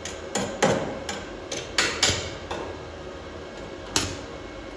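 Stick-welding electrode being struck against a steel tube, the arc catching in short sharp cracks, several in the first couple of seconds and one more near the end, rather than holding as a steady burn.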